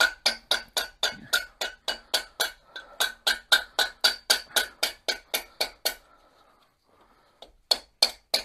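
A rubber mallet taps lightly and steadily, about four times a second, on the finned cast-iron cylinder barrel of a VW 1600 dual-port air-cooled engine, working the barrel loose from the crankcase. Each tap has a short metallic ring. The tapping stops for about a second and a half near the end, then starts again.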